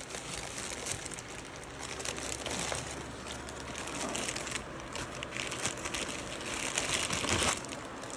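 Crinkling and rustling of packaging, in irregular bursts as things are handled and moved around, loudest shortly before the end.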